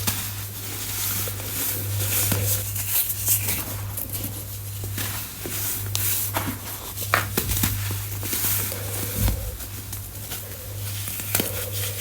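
Reformed (re-pressed) baking soda chunks being crushed: a run of dry crunches and crumbling crackles, some sharper snaps standing out, over a steady low hum.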